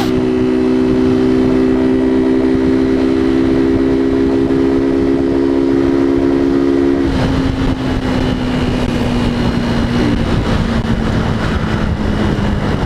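Motorcycle engine running at steady revs with wind rushing past. About seven seconds in, the engine note drops and eases off, sinking slowly, as the throttle is backed off.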